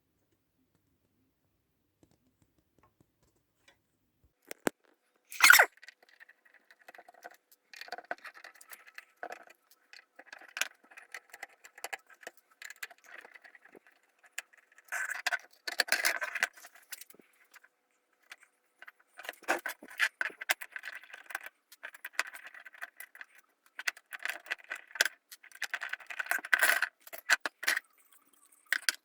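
Small hard objects being handled: a sharp click about five seconds in, then irregular clicking, scraping and clattering.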